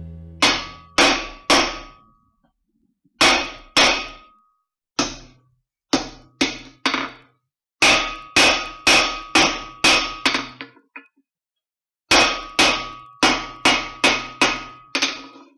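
Hand hammer striking hot steel on an anvil in quick runs of blows separated by short pauses, each blow with a ringing clang from the anvil.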